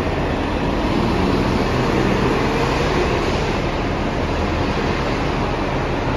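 Diesel engine of a 2021 New Flyer Xcelsior XD40 transit bus, a Cummins L9, pulling away and accelerating, with a faint rising whine about two to three seconds in. It echoes under a concrete deck.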